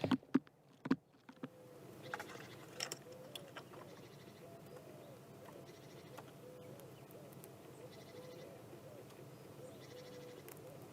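A few sharp knocks and clicks in the first second and a half, then faint outdoor background with short, wavering animal calls repeating and a few faint high chirps.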